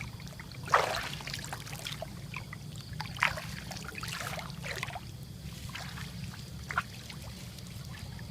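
Water splashing and trickling, with a few short, louder splashes, the loudest about a second in, over a steady low hum.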